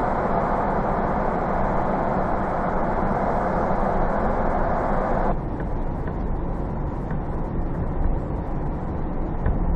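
Steady road and engine noise heard from inside a moving car; it drops a little and changes character about five seconds in.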